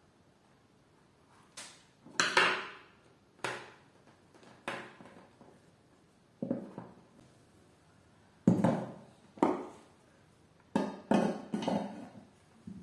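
Hard objects being handled and set down on a hard surface: about a dozen irregular knocks and clatters, each dying away quickly.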